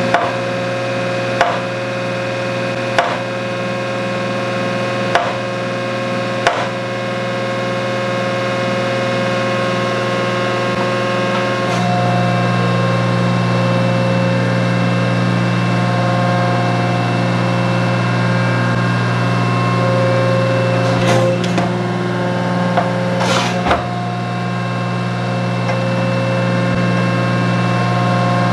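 A 1943 metal planer running, with a steady drive hum and whine as its table carries a cast iron straight edge casting past the tool head. Five sharp clicks come in the first several seconds. From about the middle the drive hum grows louder and holds steady as the table travels, with a couple of knocks near the end.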